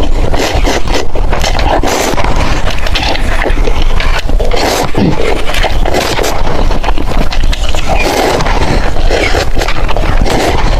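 Close-miked eating sounds of noodles: a dense, continuous run of smacks and clicks from chewing and slurping.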